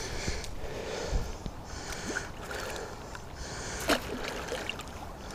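Canal water sloshing and splashing as a small jack pike is released back in by hand, with a brief sharper splash about four seconds in.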